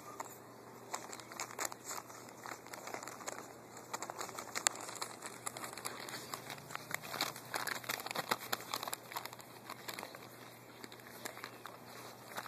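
Paper dog-food bag crinkling and crackling under a group of puppies scrambling, pawing and nosing over it, in an irregular run of rustles and sharp crackles.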